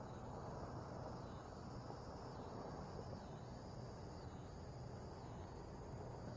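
Faint insect chorus: a steady high trilling, with a slightly lower trill that swells and breaks about once a second, over a low steady hum.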